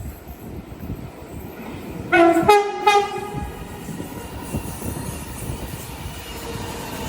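Sydney electric train sounding a two-note horn, a short lower note then a higher one, about two seconds in, over the rumble of the train running through the station without stopping.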